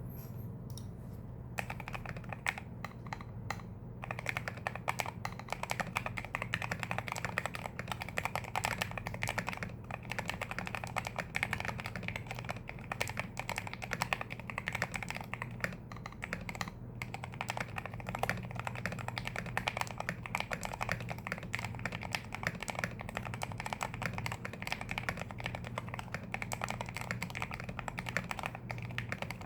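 Typing on a CIY Tester68 mechanical keyboard with hand-lubed Gateron Yellow linear switches and XDA keycaps, its case tape-modded and foam-dampened. A few separate keystrokes come first, then steady fast typing from about four seconds in.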